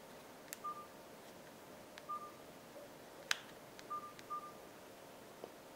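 Nokia 3310 (2017) keypad being pressed: faint button clicks with short, high key-tone beeps from the phone, four beeps at irregular intervals and one sharper click a little past the middle.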